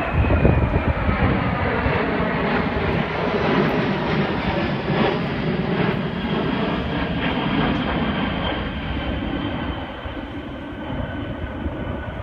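E-4B (Boeing 747-200) jet roar from its four General Electric F103 turbofans as it passes overhead, with a high whine that drops in pitch early on. The roar eases off slightly near the end as the aircraft flies away.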